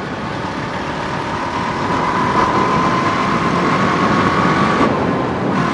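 Honda four-wheeler (ATV) engine running as it is ridden slowly on oversized 25-inch tires. A faint high whine rises slightly in pitch and drops away about five seconds in.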